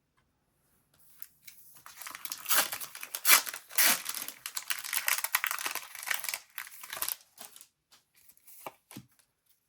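Trading-card booster pack wrapper being torn open and crinkled, a dense crackling tear lasting several seconds, followed by a couple of short taps near the end.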